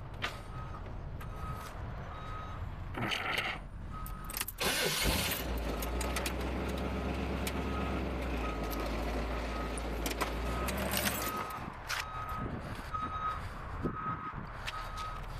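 Tow truck's backup alarm beeping steadily, one short high beep about every 0.8 seconds, as the truck reverses. A low rumble of running engine noise comes up under the beeps for several seconds in the middle.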